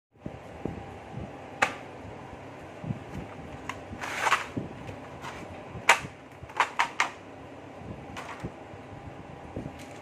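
Sharp plastic clicks and clatters as a clear plastic case of DOMS brush pens is handled and opened and the pens are lifted out, about ten separate clicks with a brief rustle about four seconds in, over a steady hiss.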